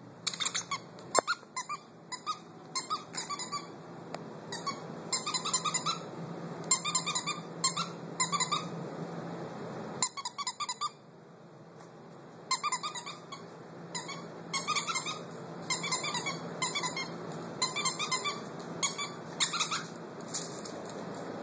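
Rapid high-pitched squeaks in short bursts of several at a time, repeating over and over, with a break of about two seconds about halfway through.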